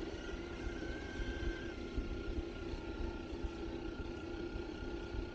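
Electric motor and gearbox of an RC scale crawler whining steadily as it drives, the pitch rising briefly about a second in, over a rough low rumble.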